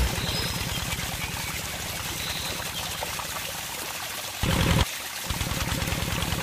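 Water from a miniature pump's pipes pouring and splashing into a small pond, over a fast, regular low pulsing. A brief louder burst comes about four and a half seconds in.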